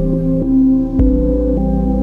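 Ambient synthesizer music: sustained chords that change every half second or so, with a soft struck note about a second in.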